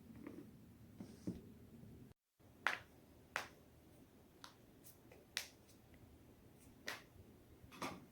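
Spinal joints of the neck and back cracking as they are forcibly twisted: about seven sharp, separate pops at irregular intervals after a brief gap a couple of seconds in.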